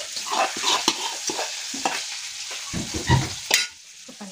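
Steel spoon scraping and tapping as chicken filling is spread over chapatis: irregular scrapes and small clicks over a steady hiss, with a dull thump about three seconds in and a sharp click just after, then it goes quieter.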